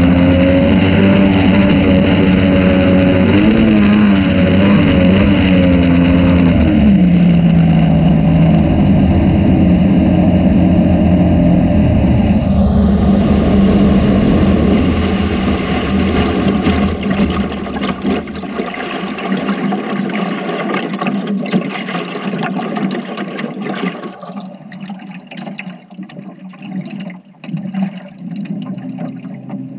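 A small boat engine running, its pitch wavering and dropping about seven seconds in. From about fifteen seconds on it fades away, leaving the wash of water and wind.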